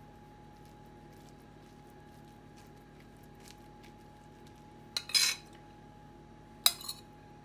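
A metal spoon clinking against a plate, with two loud clatters about five seconds and nearly seven seconds in, between faint taps of the spoon pressing meat filling onto the dough.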